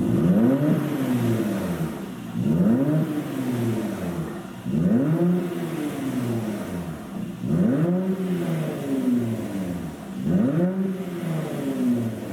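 Mercedes-AMG C43's twin-turbo V6 engine and exhaust revved up quickly and let fall back, five times in a row, about every two and a half seconds. The exhaust runs an aftermarket pop tune meant to give pops and crackles as the revs drop.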